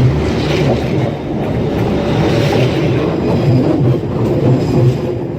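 Train passing at close range: a loud, steady rumble of its wheels on the rails.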